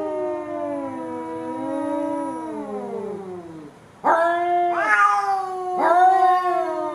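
Domestic cat yowling. One long, wavering drawn-out call slides down in pitch at its end; after a short pause it is followed by three shorter yowls in quick succession.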